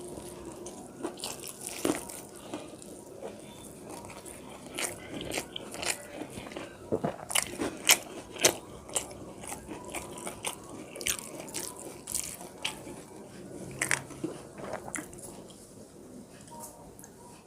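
A person eating close to the microphone: chewing with irregular, sharp, crisp crunches, from a meal of rice with fried fish and potato.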